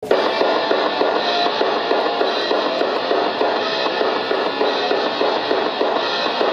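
Upbeat rock-pop idol song with a drum kit and guitar playing a steady beat, with no singing yet.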